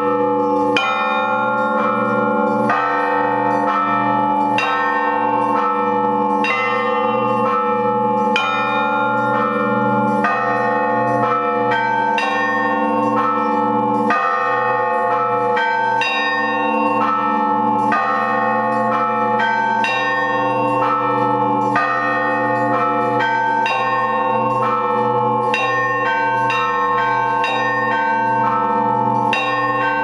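Russian Orthodox workaday peal on seven church bells cast by the Litex foundry, rung from clapper ropes, with the 1,700 kg blagovestnik (great bell) among them: slow, even strikes about once a second, each ringing on into the next, over a steady low hum. No small trill bells sound, which is what sets this weekday peal apart from a festal one.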